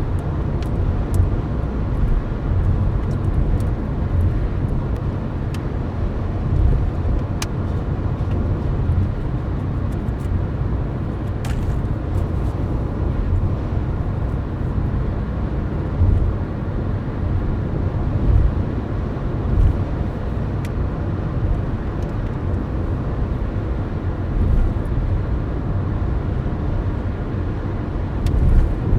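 Steady low rumble of road and tyre noise with engine drone inside a car cruising on a highway.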